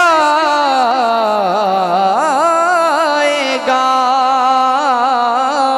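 Man singing a naat into a microphone: one long drawn-out vocal line without words, sliding down in pitch at first, then wavering in quick ornaments, then held on a steadier note.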